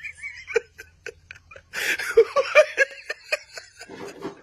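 A person laughing: a few short snickers, then a longer run of quick, repeated laughter starting a little under two seconds in.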